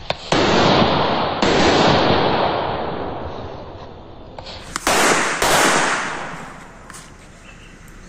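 Small match-head firecrackers going off: a sharp crack, then a loud spurt of hissing and fizzing that swells once more and fades over a few seconds, followed by a second hissing spurt about five seconds in that also fades away.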